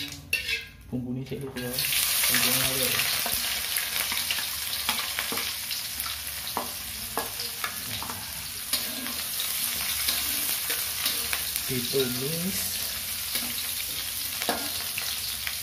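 Chopped shallots and garlic frying in hot oil in an aluminium wok: a steady sizzle starts suddenly about two seconds in and runs on. A metal spatula stirs and scrapes the pan, with scattered clicks of metal on metal.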